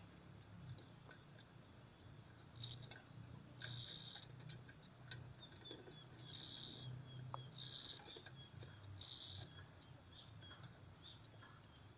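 Cricket calling: five bursts of high, pure-toned song, the first very brief and the others under a second each, with gaps of one to two seconds between them.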